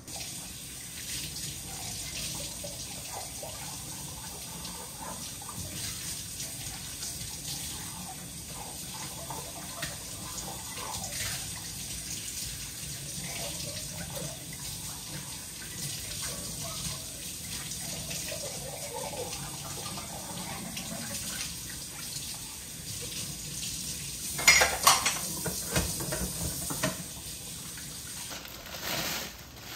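Water running from a tap and splashing, with a cluster of loud knocks and clanks, like pots or dishes, about twenty-five seconds in.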